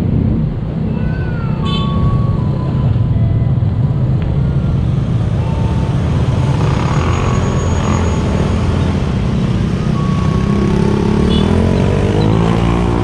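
Motorcycle engines idling over a steady low traffic rumble, with a few short high chirps. About eleven seconds in, several motorcycle engines rev up, rising in pitch, as the riders pull away across the tracks.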